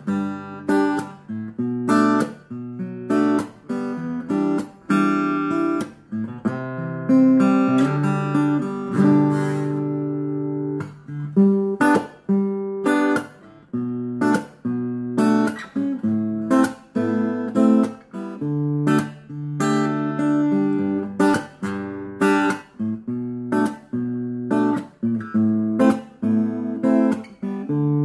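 Acoustic guitar played through a small Aroma AG-15A acoustic guitar amplifier, a 15-watt amp with a 5-inch speaker. The picked and strummed chords and notes have sharp attacks, and one chord rings out longer about ten seconds in.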